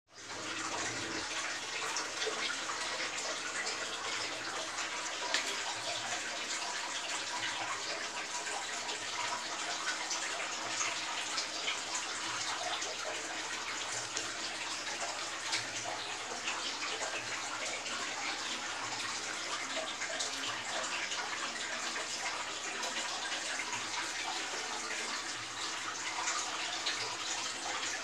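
Aquarium water bubbling and trickling steadily, full of small pops, with a faint low hum beneath.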